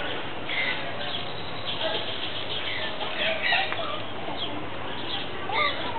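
Small birds chirping in short scattered calls over a steady background murmur of distant voices.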